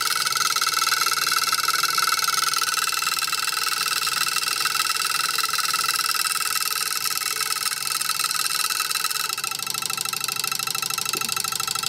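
Homemade twin-coil vibrating switch buzzing steadily, its iron rod chattering rapidly between two electromagnet coils. With the load bypassed it runs at high speed, in "overdrive".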